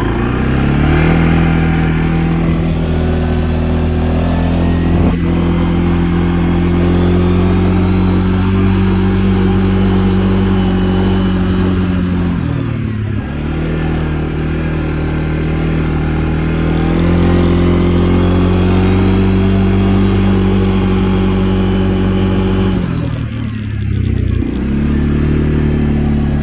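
Motor vehicle engine running as it is driven. It picks up speed at the start, then its pitch drops and climbs back twice, about halfway through and near the end.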